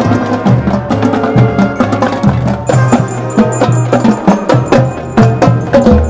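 Middle-school marching band playing as it passes, the drumline's snare drums, tenor drums, marching bass drums and cymbals hitting in a steady cadence rhythm, with brass and saxophones also sounding.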